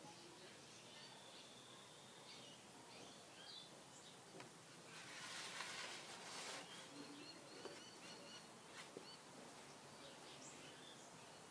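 Near silence, with a soft paper rustle for a second or so about five seconds in as a painted sheet is folded over and pressed flat. Faint short high chirps sound now and then in the background.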